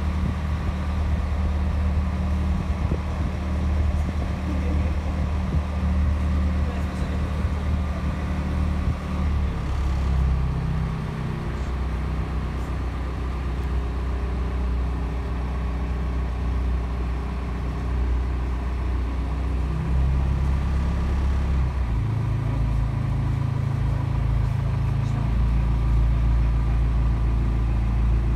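A small tour boat's engine running steadily, its note shifting about ten seconds in and again about twenty-two seconds in.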